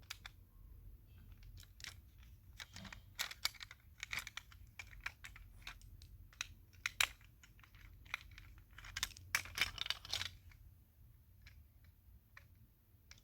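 Irregular light clicks and taps of small diecast and plastic toy-car parts being handled and fitted together by hand, in quick clusters with short pauses between.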